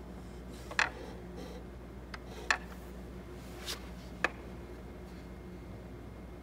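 About five light clicks and knocks as a wooden harpsichord key lever is pressed and shifted against an upturned clothes iron, over a steady low hum.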